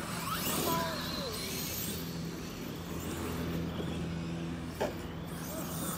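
Arrma RC trucks' brushless electric motors whining as they are driven over grass, the pitch rising and falling with the throttle in the first couple of seconds, over a steady low hum, with a short knock about five seconds in.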